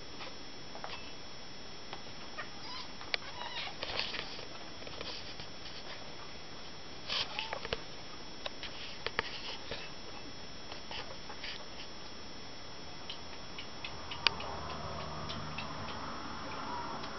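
Tiny kitten giving faint, short, high mews while being handled in a towel, among small clicks and rustles. About fourteen seconds in a sharp click is followed by a steady low hum.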